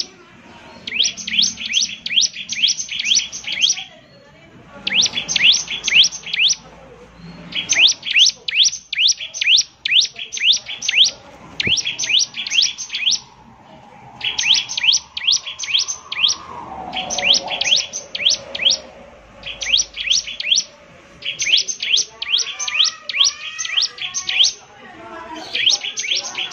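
Bar-winged prinia (ciblek) singing its 'semi' song: repeated bouts of quick, high, upswept chirps, each bout a second or two long with short pauses between. A fainter lower warble sits under it in places.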